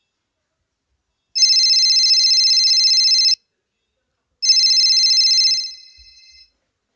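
Telephone ringing twice, each ring a fast trilling tone about two seconds long; the second ring is cut short.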